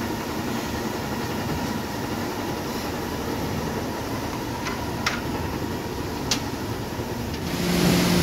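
Steady mechanical rumble of industrial machinery, with a few light knocks around five and six seconds in. Near the end it gives way to a louder steady hum.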